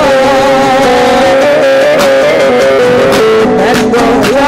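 Loud amplified music: a melody of held notes stepping from one pitch to the next, at a constant level.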